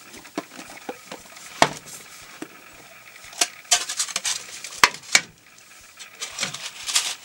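Hands handling a heart-shaped plastic chocolate box: sharp clicks, taps and rattles of its clear plastic lid and tray as the box is turned over and the lid is pried off, the loudest knocks coming in a cluster around the middle.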